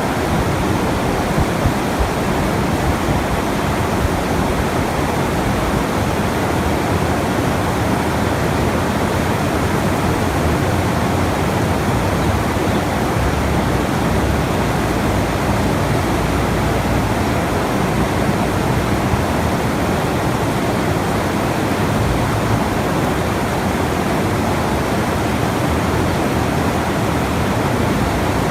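Steady, even rushing of water like a waterfall, unchanging in level, played as a sleep sound.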